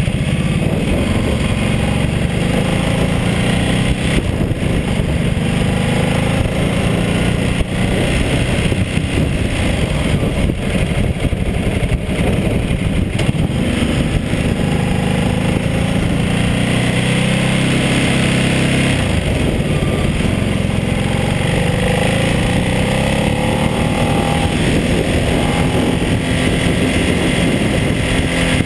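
Ducati Multistrada 1200S's L-twin engine running at road speed, heard from on the bike under a steady rush of wind noise. Its pitch rises and falls again and again as the throttle opens and closes through the curves.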